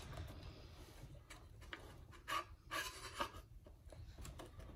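Faint rubbing and scraping as a rubber diaphragm assembly is pushed and seated by hand into a Secoh EL-80-15 linear air pump's housing, with a few short scrapes between two and three and a half seconds in.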